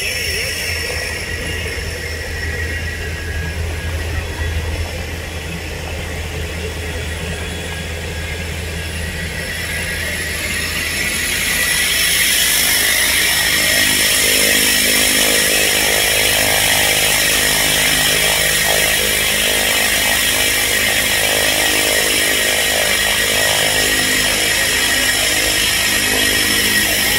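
Cessna Caravan's single turboprop engine running as the plane taxis: a steady high turbine whine over the propeller's buzz, growing louder about twelve seconds in as the aircraft comes close.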